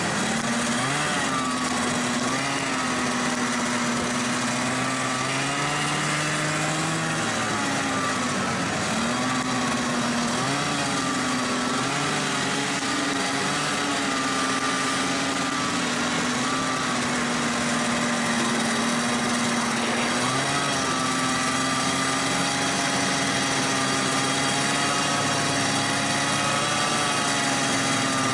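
Snowmobile engine running steadily at trail speed, heard close up from the riding sled, its pitch wavering gently with the throttle, easing off about a quarter of the way in and picking up again past the middle.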